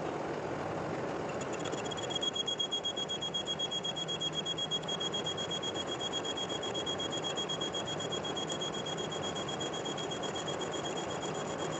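Metal lathe turning while a cutting tool faces a gear blank. About a second and a half in, a high-pitched steady squeal starts from the cut and holds, pulsing quickly at first.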